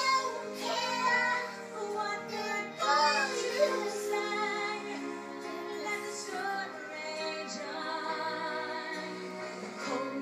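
A young girl singing along to a song with instrumental accompaniment.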